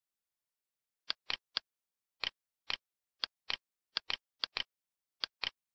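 Computer mouse clicking, about a dozen short sharp clicks at an irregular pace, several in quick pairs, as mesh vertices are selected and dragged.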